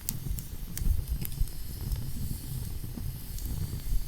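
Campfire crackling: sharp pops and snaps every half second or so over a steady low rumble and hiss.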